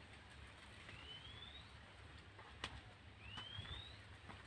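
Near silence, with a faint rising whistled call from a bird heard twice, a couple of seconds apart, and one faint click between them.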